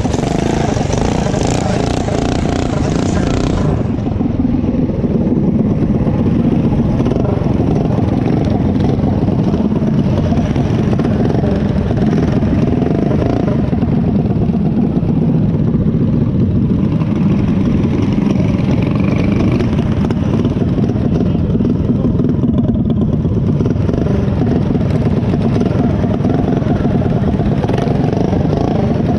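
Several small mini bike engines running steadily together, the nearest being the rider's own bike. For the first four seconds a rushing hiss of riding sits over the engines, then stops suddenly.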